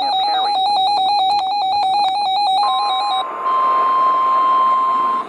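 A weather radio receiver's electronic alert beep warbles rapidly in a buzzy tone. About two and a half seconds in, the steady NOAA Weather Radio 1050 Hz warning alarm tone comes in and holds, marking a warning about to be broadcast. The warbling stops soon after, and the long tone cuts off just before the end.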